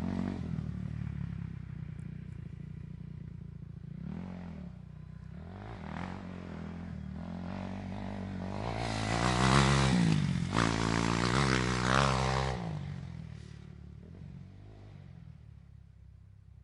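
Dirt bike engine running. It fades at first and revs briefly about four seconds in. It comes up loudest from about nine seconds, its pitch rising and falling with the throttle, then fades away after about thirteen seconds.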